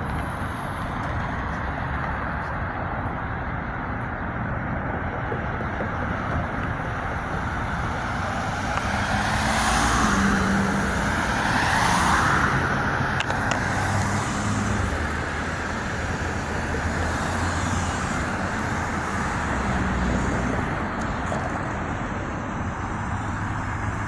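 Road traffic noise: a steady rush of car engines and tyres, swelling louder for a few seconds around ten to twelve seconds in.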